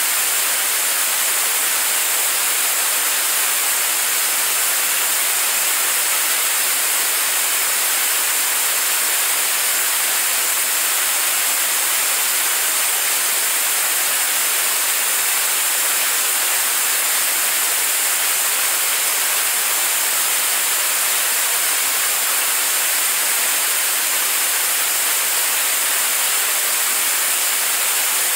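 Staged-combustion liquid rocket engine firing steadily in a long-duration hot-fire test. The even, rushing noise of the exhaust holds at one level, with no change in pitch and no pops.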